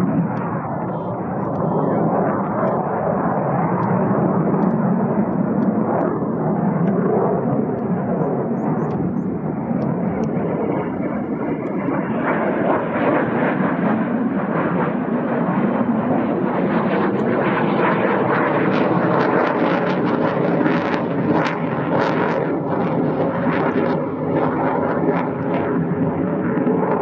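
Eurofighter Typhoon's twin EJ200 turbofan jet engines running as the fighter flies overhead: a loud, steady jet noise that turns harsher and crackly about halfway through.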